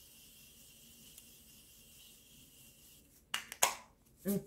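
Makeup setting spray misted onto the face: a faint steady hiss for about three seconds, then two short, sharper spritzes.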